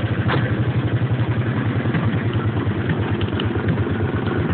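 Go-kart engine running steadily while under way, a rapid, even putter throughout.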